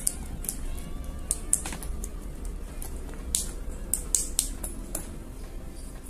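Irregular sharp clicks and ticks of a fan motor stator's copper winding wire being worked into the slots by hand, over a steady low hum.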